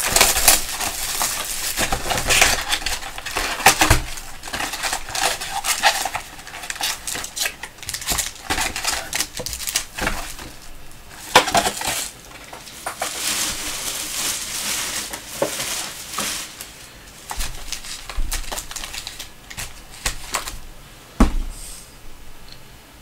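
A 2015-16 Panini Select basketball hobby box being opened by hand and its packs laid out on the table: rustling cardboard and pack wrappers, with many light clicks and taps and a few sharp knocks as packs are set down.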